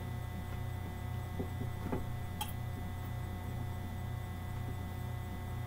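Steady low electrical hum, with a couple of faint clicks about two seconds in.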